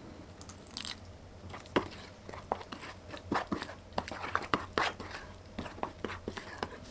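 Spoon stirring a thick, wet seasoning sauce in a small stainless steel bowl: sticky squelching with sharp clinks and scrapes of the spoon against the metal, about three a second from near two seconds in.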